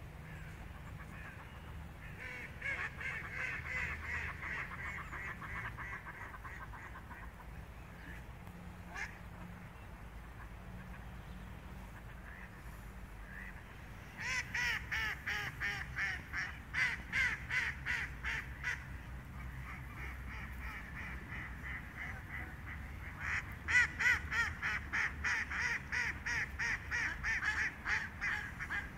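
A flock of mallards quacking in bouts of quick, repeated quacks: one a couple of seconds in, a louder one from about halfway, and another loud run near the end, with softer calling in between.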